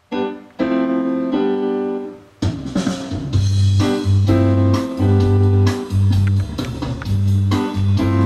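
Background music: held keyboard chords, joined about two and a half seconds in by a pulsing bass line.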